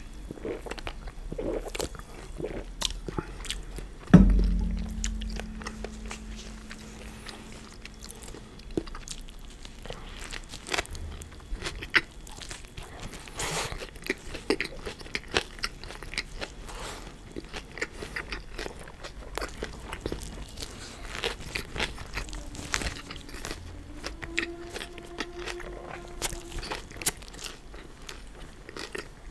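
Close-miked eating: crisp lettuce and a tortilla wrap crunching between the teeth, with steady chewing. About four seconds in there is one loud knock with a short low ring, as of an aluminium soda can set down on a wooden table.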